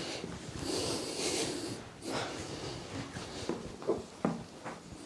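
A person's long, hissing breath, then two or three short, sharp clicks near the end.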